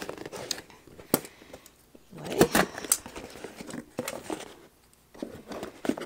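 Scissors cutting and scraping at the packing tape on a small cardboard box: scattered clicks, scratches and rustles, with a short pause near the end.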